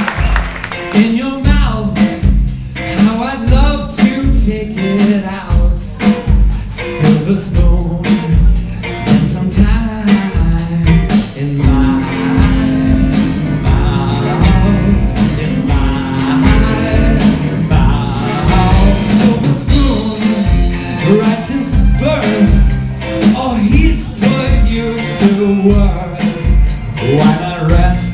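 Live band playing a song with a steady drum beat, guitars, bass, violin and cello, and a singer.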